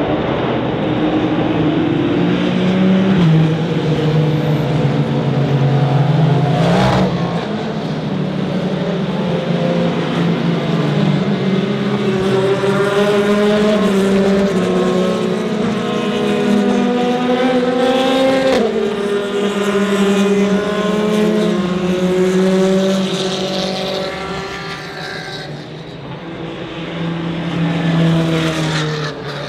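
Race cars' engines at high revs as cars pass on the circuit, several engine notes overlapping and stepping up and down in pitch, with a short sharp crack about seven seconds in and one more car swelling and fading near the end.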